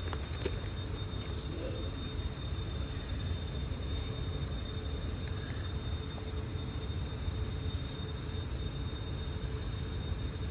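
Steady low rumble of running machinery with a faint constant high-pitched whine over it.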